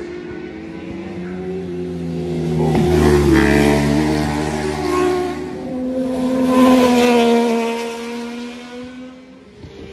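Racing motorcycle engines passing at speed, swelling loudest about three seconds in and again about seven seconds in, their pitch falling and rising as the riders shift and accelerate.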